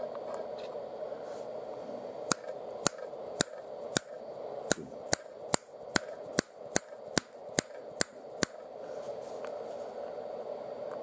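A run of about fourteen sharp mechanical clicks, roughly two a second, starting about two seconds in and stopping about eight and a half seconds in, over a steady low hum.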